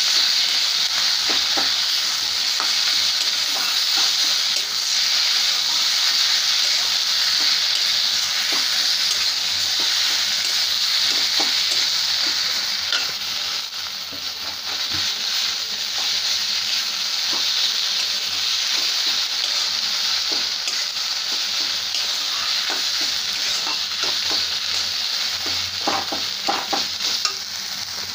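Chopped taro leaves and pieces of fried egg sizzling steadily in a karai as the water cooks off, while a spatula stirs and scrapes the pan with frequent small clicks, a few louder ones near the end.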